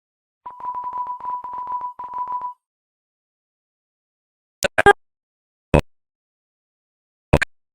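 A steady electronic bleep tone, broken into a quick stutter, lasting about two seconds. Then a pause, a cluster of sharp short hit sound effects, another a second later, and one more near the end.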